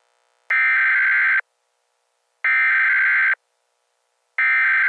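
Emergency Alert System SAME header: harsh, buzzy digital data tones in bursts of about a second, each a second apart. Two whole bursts sound, and a third starts near the end. They are the coded header that opens an emergency alert broadcast.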